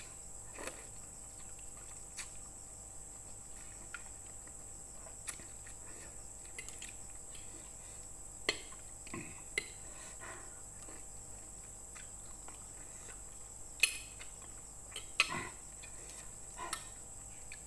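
Metal fork and spoon clinking and scraping now and then against a ceramic plate of noodle soup while eating, the sharpest clink about fourteen seconds in. A steady faint high-pitched whine runs underneath.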